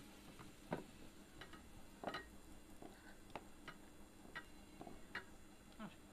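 Mustard oil crackling around a gram-flour-battered brinjal slice shallow-frying on an iron tawa: faint, scattered sharp pops at an irregular pace, about one or two a second.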